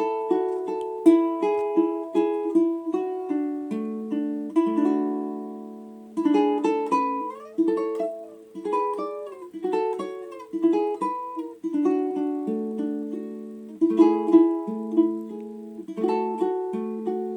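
Custom 17" curly-maple tenor ukulele with an Engelmann spruce top, tuned well below standard tenor tuning and strung with a high fourth string, played solo in a Hawaiian-style fingerpicked improvisation. Plucked notes and chords ring and fade one after another, with a few sliding notes midway.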